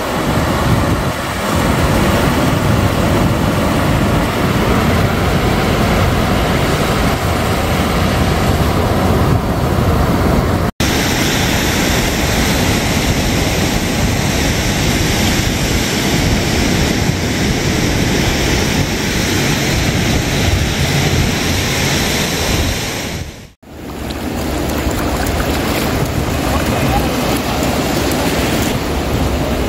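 Ocean surf breaking and washing up a sandy beach, with wind rumbling on the microphone. The sound drops out briefly twice, about a third of the way through and again about three-quarters of the way through.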